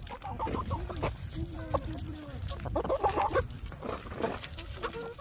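Chickens clucking, a flock of hens and a rooster giving a string of short calls, loudest about three seconds in.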